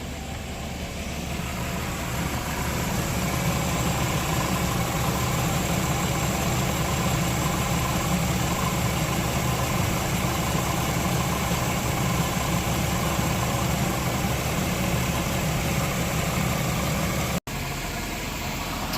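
1998 Chevy Venture's 3.4-litre V6 idling steadily as it warms up to operating temperature, with head-gasket sealer circulating in the cooling system to stop a head gasket leak. The sound cuts out for an instant near the end.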